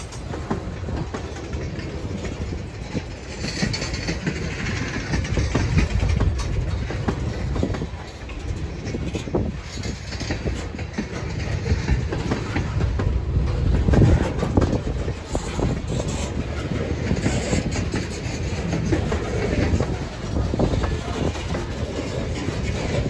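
Freight train cars (tank cars, then gondolas and covered hoppers) rolling past close by: a steady rumble of steel wheels with clickety-clack over the rail joints.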